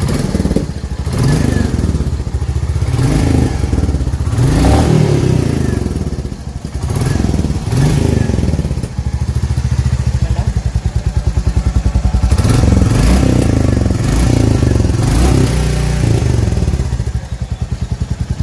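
Royal Enfield 350 single-cylinder motorcycle engine, stationary, revved in repeated throttle blips from idle, its exhaust beat pulsing evenly between blips.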